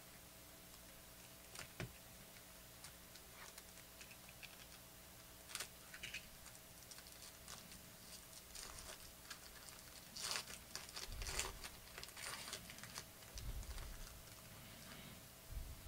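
Foil wrapper of a trading-card pack being handled and torn open by hand: faint scattered crinkling and rustling with small clicks, louder and busier about two-thirds of the way through.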